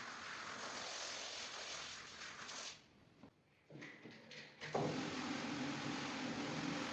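Faint rug-washing sounds: first a steady hiss of water or machinery, then a break about three seconds in, then a steady machine hum with noise, such as a rug scrubber running.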